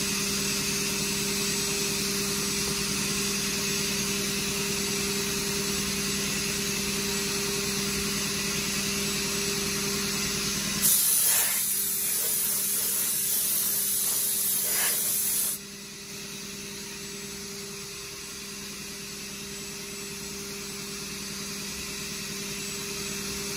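Robodrill CNC mill taking a light high-speed cut in aluminium plate, the spindle and cutter giving a steady hum with a high hiss. About eleven seconds in a compressed-air blow gun blasts loudly for about four and a half seconds, clearing chips, then cuts off suddenly while the mill keeps running.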